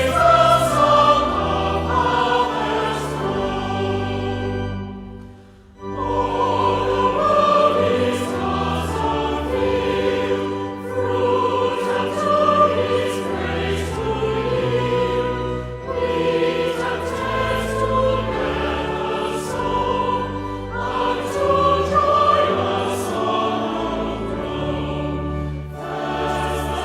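Choir singing with instrumental accompaniment under sustained bass notes, with a brief break between phrases about five seconds in.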